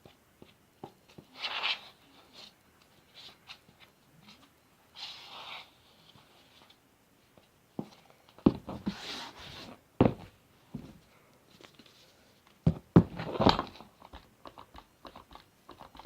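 Slime ingredients being mixed by hand in a bowl: scattered clicks, scrapes and short hissy noises, with several sharp knocks from about halfway through and near the end.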